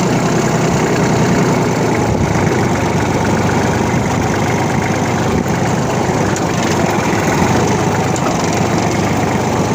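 Kubota compact tractor's diesel engine running steadily at close range, with an even, fast clatter of firing pulses.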